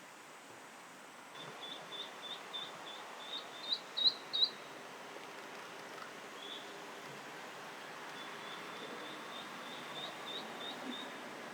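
Eastern spot-billed duck ducklings peeping, the calls of chicks separated from their mother. A run of short high peeps grows louder to three loud ones near the middle, then a softer run follows near the end.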